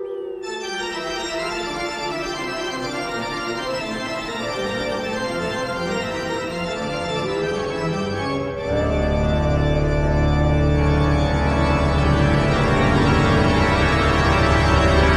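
Organ music playing slow, sustained chords. Deep bass notes come in about nine seconds in and the music swells louder.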